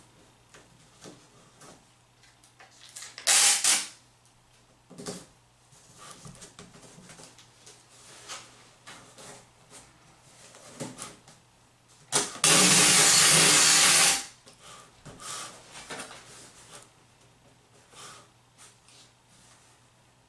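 Packing tape pulled off the roll of a handheld tape-gun dispenser: a short strip about three seconds in, then a long, steady run of tape unrolling for about two seconds past the middle. Between them, quiet rustling and knocks of the tape being pressed onto the cardboard box and cloth.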